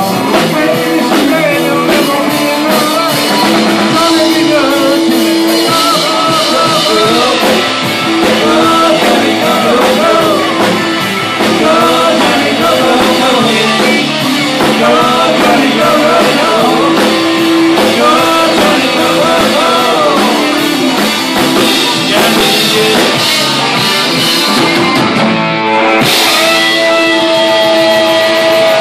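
Live rock band playing an uptempo rock and roll number on overdriven electric guitars, bass guitar and drum kit, loud and without a break. Near the end a single long note is held.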